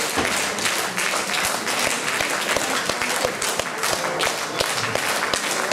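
Audience applauding: dense, steady clapping from many hands in a hall.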